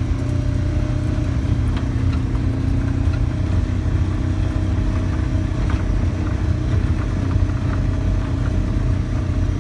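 Vehicle driving up a rough mountain road, heard from inside: a steady low engine and road rumble with scattered small rattles and knocks.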